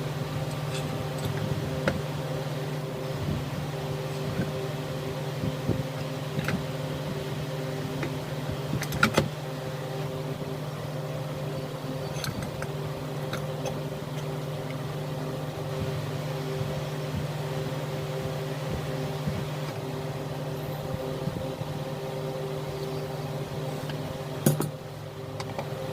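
A steady mechanical hum from a running motor, with scattered light clicks and knocks of metal work, one sharper knock about nine seconds in and another near the end.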